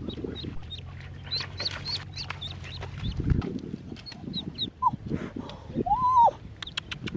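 Duckling peeping repeatedly in short, high cheeps, with a louder, lower call about six seconds in.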